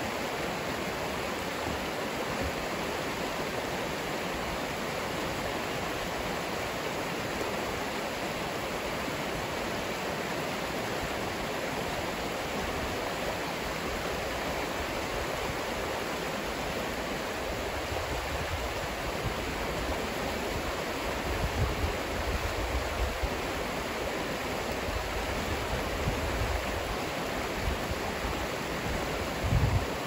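Shallow river rapids running over rocks: a steady, even rush of water. In the second half, a few low, irregular bumps of wind buffeting the microphone.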